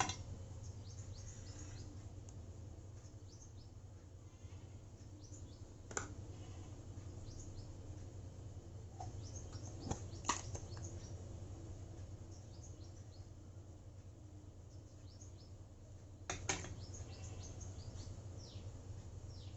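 Small birds chirping in the background, many short falling chirps, over a steady low hum. A few sharp clicks come about six, ten and sixteen seconds in, from wire or tools being handled.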